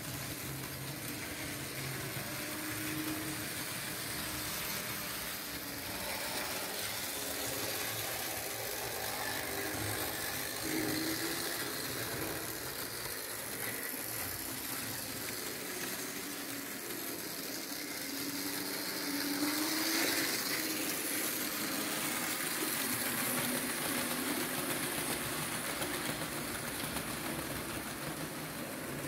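Märklin H0 model train running: the electric motor of a V 200 diesel locomotive model humming and its wheels rattling along the track as it pulls a rake of passenger coaches, briefly louder about twenty seconds in.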